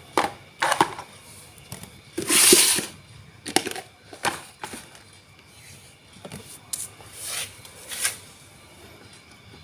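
Wood fire crackling in a fireplace: irregular sharp pops and snaps, with a loud hissing burst about two and a half seconds in and a softer hiss a little past seven seconds.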